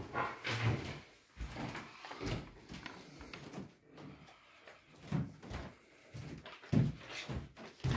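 Irregular soft thumps and knocks from footsteps on a hard floor and from handling the phone while walking into a room.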